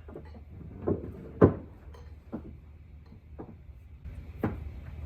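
A handful of short knocks about a second apart, the loudest about one and a half seconds in, over a steady low hum.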